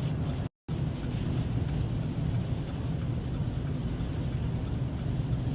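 Steady engine and road noise heard inside a truck's cab while driving slowly on a snowy highway. The sound cuts out completely for a split second about half a second in.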